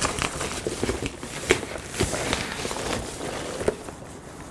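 Rustling and crackling of plastic wrap and foam packing peanuts as hands dig through a shipping box, with scattered sharp clicks and knocks.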